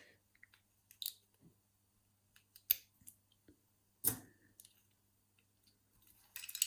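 Small metal clicks and knocks of the levers and parts of a dismantled five-lever mortice lock being handled. There are a few sharp single clicks a second or more apart, one heavier knock, and a quick run of clicks near the end.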